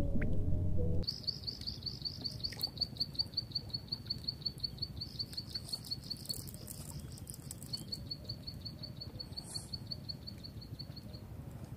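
A low rumble cuts off about a second in. Then a high chirp repeats evenly and fast, about five times a second, pausing briefly in the middle before going on.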